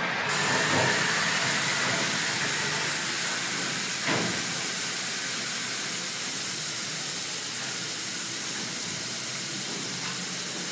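Compressed air hissing steadily out of a dual-action airbrush held open, starting just after the beginning. The 3-litre plastic bottle air tank is bleeding down while the airbrush compressor sits switched off, waiting for the pressure to drop far enough for it to kick back on.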